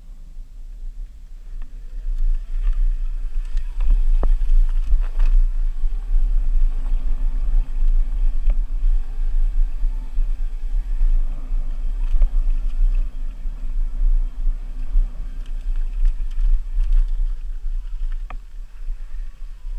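Wind rumbling over the camera microphone as an Oset electric dirt bike rides across bare rock, with the faint steady whine of its electric motor and a few sharp knocks from the wheels and chassis.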